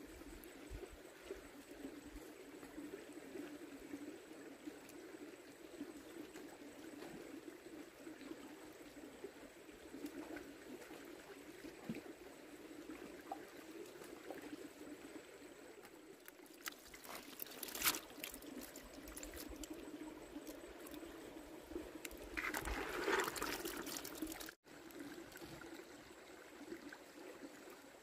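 Shallow stream trickling over rocks, a faint steady water sound. A few sharp knocks come about two-thirds of the way through, followed by a louder noisy stretch, and the sound cuts out for an instant just after.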